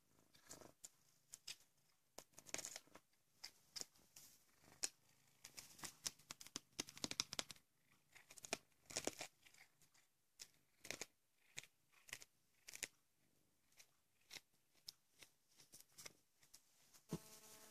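A cat chewing a whole mouse, crunching through its bones: an irregular run of sharp crunches and clicks from its teeth, coming in bursts with short pauses between. A faint steady hum with several tones starts near the end.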